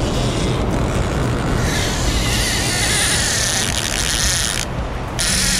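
Baitcasting reel's drag buzzing as a hooked salmon strips line off it. It starts sharply about a second and a half in, stops for a moment near the end and then runs again, over a steady low rumble of fast river water.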